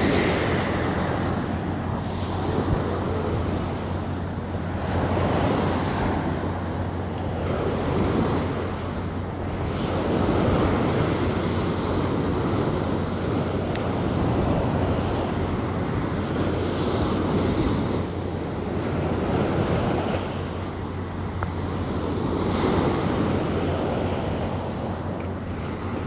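Sea surf breaking on a sandy beach, waves washing in and drawing back in slow surges every few seconds.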